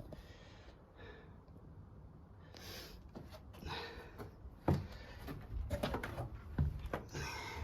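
Footsteps scuffing and crunching over debris on a derelict floor, irregular, with a few sharper knocks from about halfway on.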